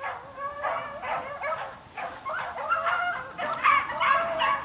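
Several beagles baying together in overlapping, drawn-out howls: a pack giving tongue while running a rabbit's track. The baying grows louder and denser toward the end.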